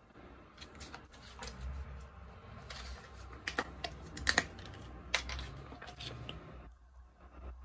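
Plastic ketchup sachet crinkling as it is handled and torn open: a run of irregular sharp crackles and clicks, loudest about four to five seconds in.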